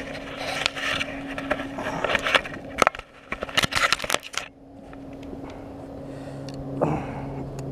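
Rattling, scraping and knocking of a landing net and gear in a kayak cockpit as a freshly landed striped bass is handled, over a steady low hum. The clatter fades about four and a half seconds in.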